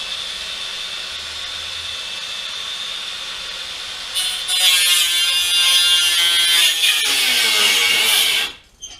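Angle grinder running with a steady high whine, then cutting into the steel exhaust pipe from about four seconds in, louder and harsher. Its pitch sags under the load before it stops shortly before the end.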